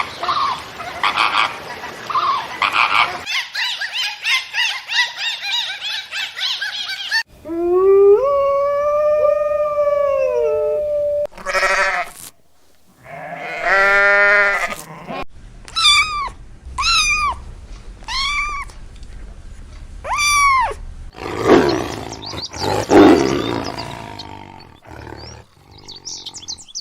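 A run of different animal calls, one after another: one long pitched call, then a series of about five short falling calls about a second apart, then rough, noisy calls near the end.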